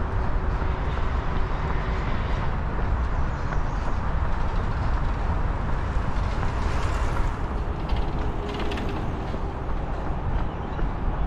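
Steady road-traffic noise with a heavy low rumble, picked up on a head-mounted action camera during a run.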